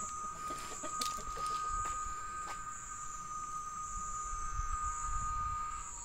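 Steady drone of cicadas in the evening countryside: one unbroken high tone with a hissy shrill band far above it. A few faint short calls sound lower down in the first two seconds.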